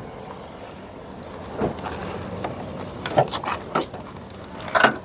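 Irregular footsteps and light knocks at walking pace, a few seconds apart, with a quick cluster of clicks near the end.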